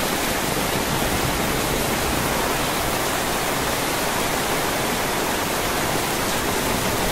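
Heavy downpour: a loud, steady hiss of rain pelting the paved lane, with no let-up.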